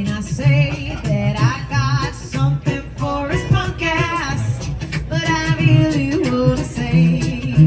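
Live band music: a melody line wavering in pitch over guitar, with a steady low beat underneath.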